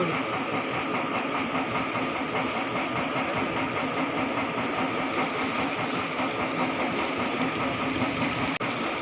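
Steady hum of a paddy-field dewatering pump and its motor running at a pump house.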